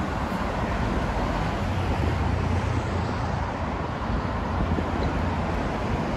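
Steady traffic noise from cars running along a multi-lane city road.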